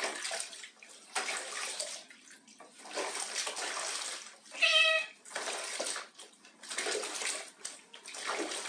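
Water splashing again and again in a basin as a cat is washed, with one short cat meow about halfway through.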